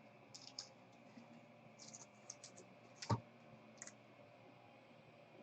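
Faint clicks and rustles of trading cards and their plastic holders being handled, with a slightly louder knock about three seconds in.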